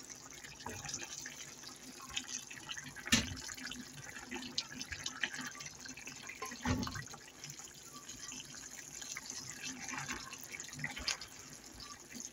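Pork adobo sauce bubbling and popping in a pan while a wooden spatula stirs the pork pieces. There is one sharp knock about three seconds in and a dull thump near seven seconds.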